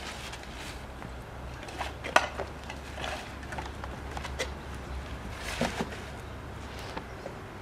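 Scattered small clicks, knocks and rustles as props and tissue paper are handled, with a sharp knock about two seconds in and a short cluster of clatter about five and a half seconds in.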